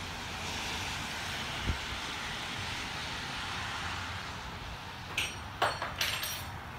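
Steady hiss of rain and wet snow falling, with a few sharp knocks and scrapes of the phone being handled near the end as it is turned.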